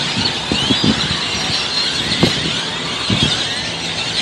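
A huge flock of birds calling all at once: a dense, unbroken din of overlapping squeaks and short sweeping whistles. Low traffic rumble and a few knocks sit underneath.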